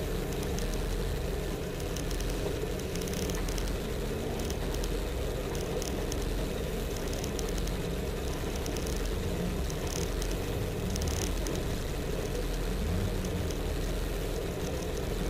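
Competition car's engine idling steadily while the car stands still, heard from inside the cabin.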